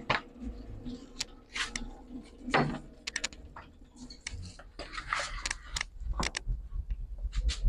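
Long hollow PVC window profile being slid along the metal bed of a double-head cutting saw and set in place, giving scattered plastic knocks, clicks and scrapes, some in quick clusters. A low hum comes in near the end.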